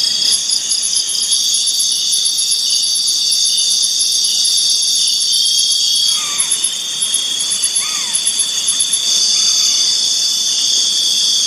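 Night insect chorus in forest: several steady high-pitched cricket-like buzzes layered with a rapid pulsing trill higher up. A few faint short rising-and-falling calls come in about midway.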